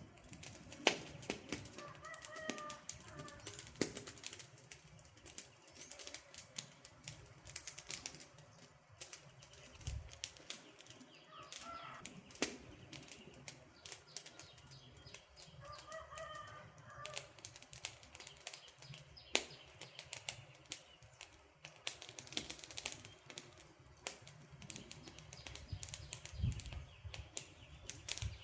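Wood campfire crackling, with dense irregular pops and snaps from the burning logs. A few short high calls, like a bird's, come through now and then: about two seconds in, near twelve and sixteen seconds, and again at the end.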